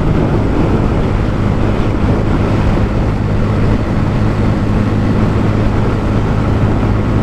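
Bajaj Pulsar N160's single-cylinder engine running at a steady pitch while riding, with wind rushing over the microphone.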